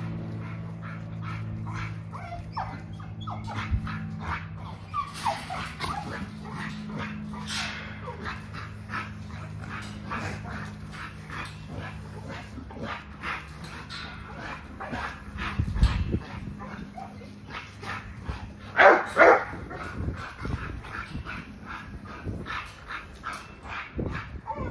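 Pit bulls barking and yipping with some whimpering, in many short bursts. The loudest are two barks close together about 19 seconds in.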